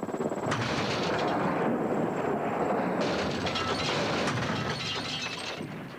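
Military helicopter coming down hard in an engine-failure test at low height and speed: a loud rushing, rattling crash noise of rotor and ground impact that swells over the first second and slowly dies away near the end.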